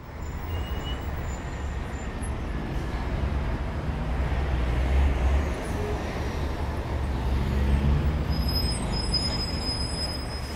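A steady low rumble with a wash of noise over it, swelling twice and easing off near the end.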